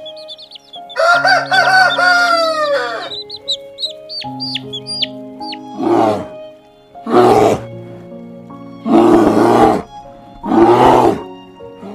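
A rooster crows once, a long wavering call that drops at the end, among short high cheeping calls. This is followed by four loud, harsh calls about a second each, over steady background music.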